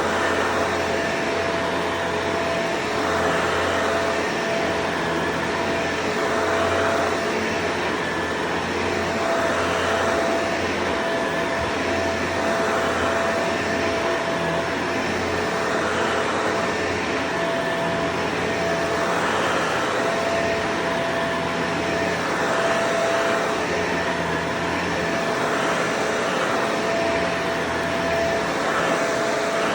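Vacuum cleaner running steadily with a whining motor tone, its sound swelling and easing about every three seconds as the nozzle is pushed back and forth.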